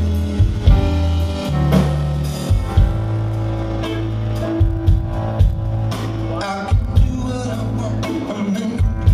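Live band music from electric guitars, bass guitar and drum kit, with a deep bass line of held notes under regular drum hits.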